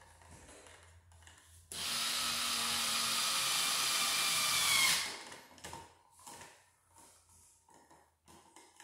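Electric screw gun running for about three seconds as it drives a screw fastening a dimmer switch into its wall box; the motor whine starts abruptly about two seconds in and cuts off suddenly. Faint clicks and handling noise before and after.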